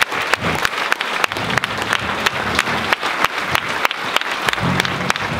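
Audience applauding, a dense steady patter of many hands with a few sharper claps close by standing out.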